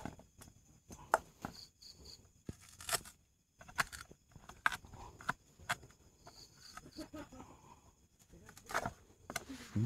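A knife handle pounding shallots and chillies in a small frying pan: irregular knocks and scrapes against the pan, about one or two a second, with a louder flurry near the end.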